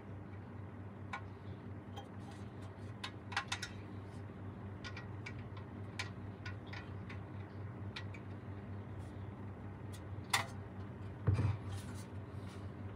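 Scattered light clicks and ticks at an irregular pace over a steady low hum, with a sharper knock a little after ten seconds and a heavier thump about a second later.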